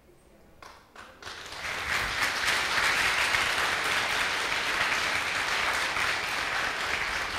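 Congregation applauding: a few scattered claps about a second in, then the applause builds quickly and carries on steadily.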